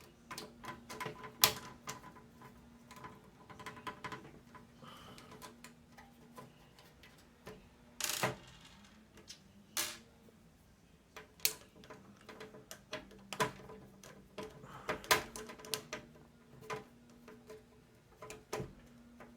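A screwdriver undoing the screws that hold a case fan in a PC case: irregular small clicks and ticks of metal on metal, with a few louder knocks.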